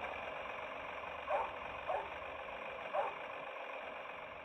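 Recorded tractor engine running, played from a children's sound book's sound chip through its small, tinny speaker, with three short falling calls over it about a second and a half, two seconds and three seconds in.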